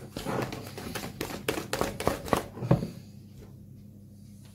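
Hand whisk beating runny cake batter in a plastic mixing bowl: a quick run of clicking, scraping strokes about four a second that stops about three seconds in.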